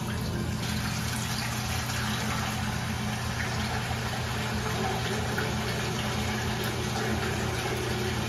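Tap water running steadily from a commercial sink faucet into a large stainless steel stockpot as it fills, over a steady low hum.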